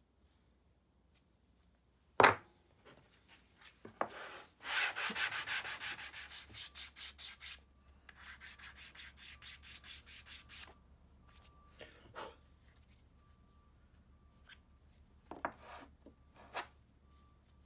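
Wooden kumiko jig block sanded by hand on a sheet of sandpaper laid flat on the bench, in two runs of quick back-and-forth strokes, about four or five a second. A sharp knock of wood on the bench comes before the strokes, and a few lighter knocks come near the end.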